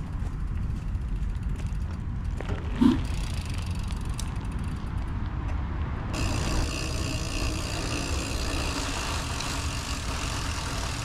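Mountain bike riding by on asphalt, its tyres rolling and wind noise rumbling, with one short sharp sound as it passes about three seconds in. About six seconds in the sound switches to a closer, hissier rolling of tyres on a concrete sidewalk with the rush of riding.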